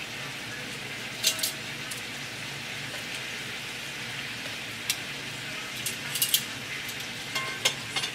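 Chicken frying in a skillet, a steady sizzle, with sharp clicks of metal tongs against the pan several times.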